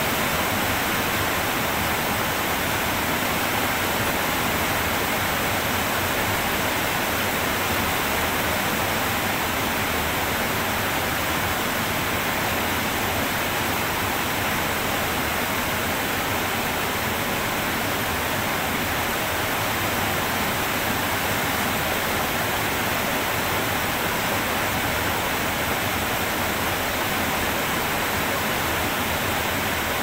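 Heavy rain falling: a steady, even rushing hiss that holds unchanged throughout, with no separate drips, thunder or other sounds standing out.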